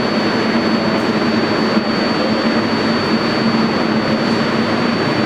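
Steady, even mechanical drone with a constant low hum and a thin high whine, carrying through an underground subway station while the track stands empty.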